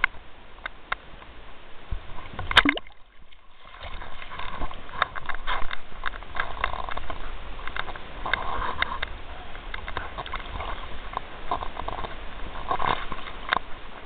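Ocean water sloshing and splashing against a camera held at the surface among swells. A sharp splash comes about two and a half seconds in, followed by a second of muffled quiet, then the splashing resumes.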